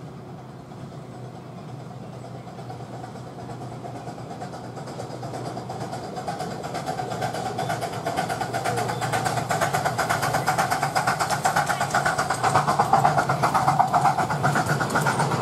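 A 10¼-inch gauge miniature steam locomotive hauling a train of passenger carriages approaches and passes close by, growing steadily louder, with a fast, even beat of exhaust and wheels on the rails.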